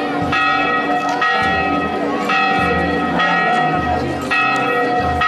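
Church bell tolling slowly, about one stroke a second, each stroke ringing on into the next.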